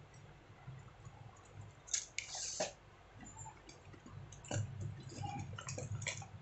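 Scattered light clicks and short rustles of small parts and tools being handled on a workbench, with a brief scraping rustle about two seconds in and a run of clicks near the end, over a faint low steady hum.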